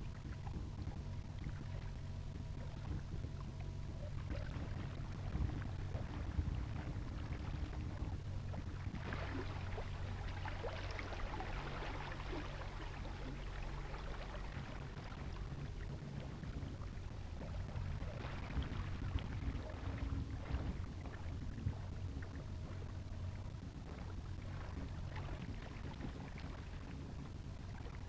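Minn Kota electric trolling motor pushing a small boat slowly across shallow water: a steady low hum with a few faint steady tones, and water splashing against the hull that grows louder about nine seconds in and again later.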